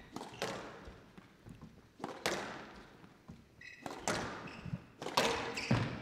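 Squash rally: the ball struck hard by rackets and hitting the court walls, sharp echoing knocks about every second, with a short shoe squeak on the court floor near the middle.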